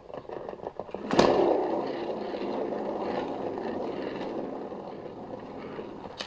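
A hand-turned paint spinner carrying a canvas, set spinning about a second in with a steady rolling rumble that slowly dies away as it slows, then stopped with a click near the end.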